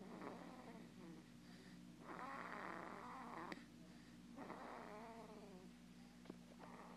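A baby snoring in sleep: faint snores come about every two seconds, some with a buzzy tone that falls in pitch and one more breathy, over a steady low hum.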